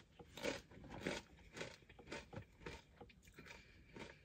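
Faint close-miked chewing of a mouthful of food, about two chews a second.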